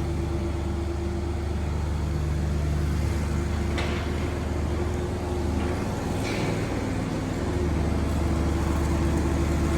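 An engine running steadily at idle, a constant low hum, with a faint click about four seconds in.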